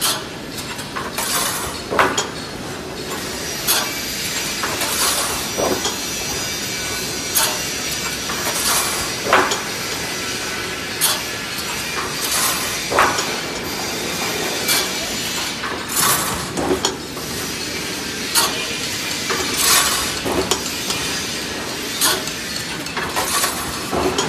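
Automatic wire mesh fence panel welding machine, built to weld four mesh sheets at once, running through its cycles: sharp metallic clanks every second or two over a steady hiss.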